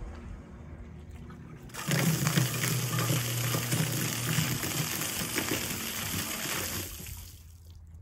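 Superior Pump remote sink and drain lift pump starting up about two seconds in, its motor humming under the loud rush of water it shoots up a vertical pipe and the spray splashing back down onto the pavement. The sound stops about a second before the end as the pump's float switch shuts it off with the bucket emptied.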